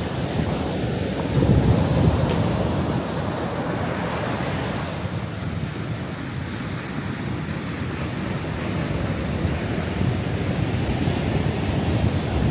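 Ocean surf breaking and washing up a sandy beach, with a low rumble of wind on the microphone. The surf swells loudest about a second and a half in.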